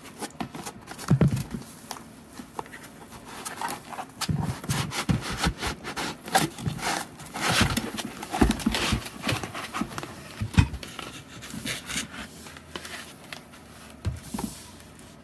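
An aluminium thermosiphon CPU cooler being worked out of its foam packing by hand: foam rubbing and scraping against the cooler, with irregular bumps and knocks and one sharp knock about ten and a half seconds in.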